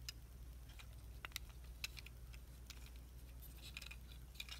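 Small, sharp clicks and taps of a plastic Transformers Deluxe Barricade action figure's joints and parts as it is handled and posed. The clicks come singly at first, then bunch together near the end.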